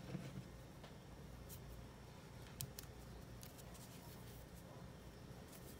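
Near silence with a few faint, scattered small ticks from hands crocheting cotton yarn with a metal hook.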